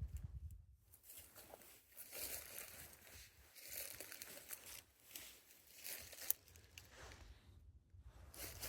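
Footsteps rustling and crunching through dry leaf litter in woodland, with irregular brushing and crackling and a single sharp click about six seconds in.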